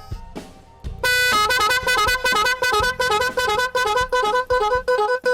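12 V snail-horn pair driven by an 8-sound echo horn module, switched to its next sound pattern. After a couple of clicks, about a second in it starts a loud, rapid run of short notes alternating between a higher and a lower pitch, several a second, repeating without a break.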